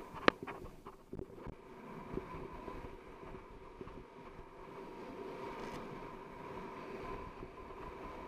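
Wind rushing over an action camera's microphone and the hiss of sliding on packed snow while descending a groomed ski run. A sharp knock comes about a quarter second in, with a few lighter knocks in the first second and a half, then a steady rush.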